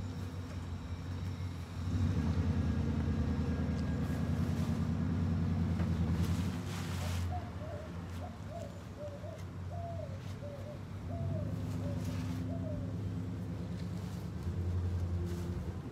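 A motor vehicle's engine idling with a low, steady rumble that swells for a few seconds twice. In the middle, a bird calls a quick series of short notes.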